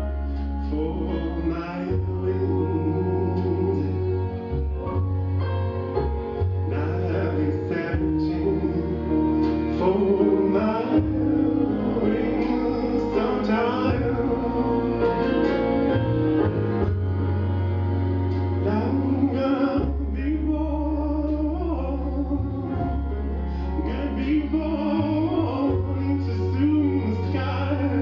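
Recorded song playing: a singing voice with wavering melody over long, held low bass notes and instrumental accompaniment.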